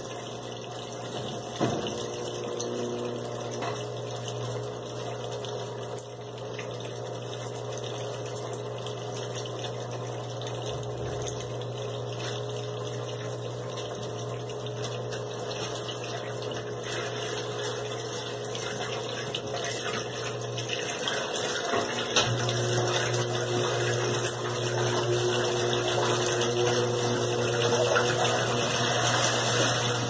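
Electrolux LT15F top-loading washing machine draining: its drain pump hums steadily with water rushing through it. In the last third the basket starts to spin, and the sound grows louder.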